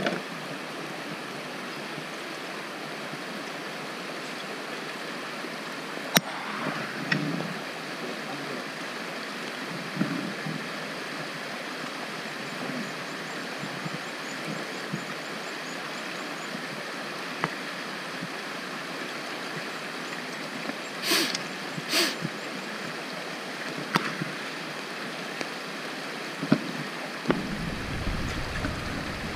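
Creek water running steadily over rocks, with a few sharp knocks now and then and a low rumble near the end.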